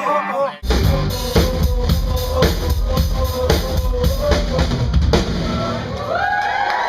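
Rock music with a full drum kit keeping a steady beat under a held note, starting abruptly about half a second in; the drums stop about five seconds in, leaving sliding pitched tones.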